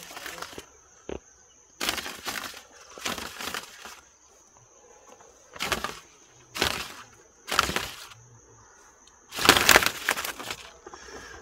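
Dry palm fronds rustling and swishing in a series of short bursts as they are handled and laid among tomato plants. The loudest burst comes near the end. A steady high thin whine runs underneath.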